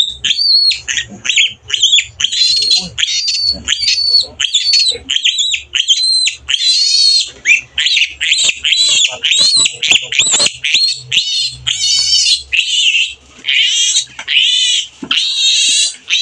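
Newborn piglet squealing as it is held and restrained for its vaccination: short, high-pitched squeals in quick succession, turning into longer, wavering screams from about six seconds in.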